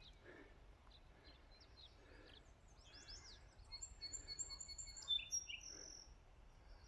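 Faint birds chirping and calling, several short high chirps and whistled notes coming mostly between about three and six seconds in, over a quiet outdoor background.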